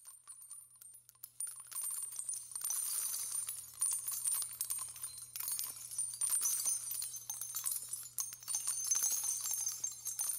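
Dense, high jingling and tinkling of small bells over a low steady hum, swelling about a second and a half in: an added intro sound bed.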